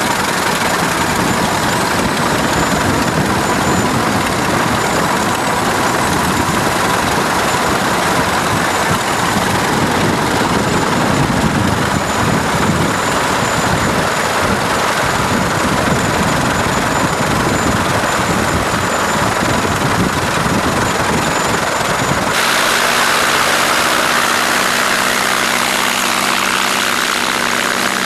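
Light aircraft piston engine and propeller running steadily. About three-quarters of the way through, the sound cuts abruptly to a different, steadier engine note with a clear pitch.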